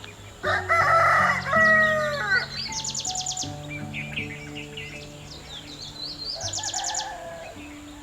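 A rooster crows once, loud and about two seconds long, its pitch falling at the end, over small birds' repeated high chirps and short fast trills; a shorter, weaker call follows near the end.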